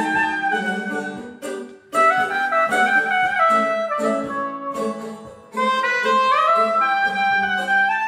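Saxophone playing a flowing melodic line over a plucked bağlama (long-necked lute), in phrases broken by two short pauses, about two seconds and five and a half seconds in.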